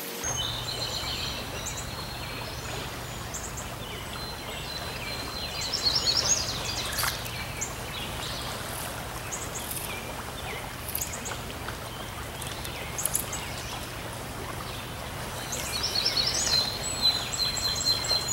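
Steady rush of stream water, with birds chirping in short bursts, loudest about six seconds in and again near the end.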